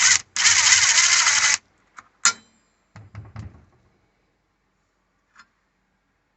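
Impact driver on its lowest speed hammering for about a second near the start, breaking loose the arbor bolt of a circular saw that has no blade lock; then a few light metal clinks and rattles.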